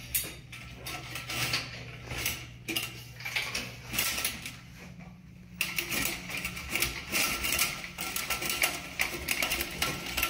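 RIDGID closet auger being cranked in a clogged toilet: the cable rattles and clicks inside the auger's tube as it is worked through the trap, with a short lull about five seconds in.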